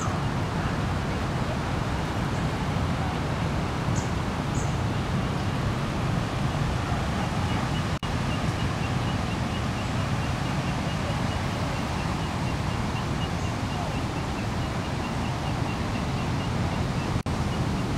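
Steady wind noise buffeting the phone's microphone outdoors beside floodwater. From about seven seconds in, a faint high chirp repeats about three times a second.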